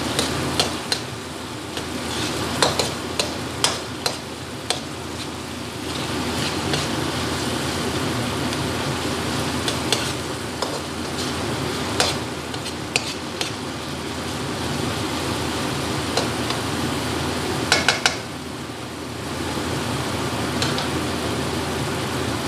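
Frozen mixed vegetables sizzling in a metal wok as a spatula stirs, scraping and tapping against the pan in sharp clicks. A quick cluster of ringing metal taps about three-quarters of the way through. Underneath, a steady whoosh from a noisy kitchen exhaust fan.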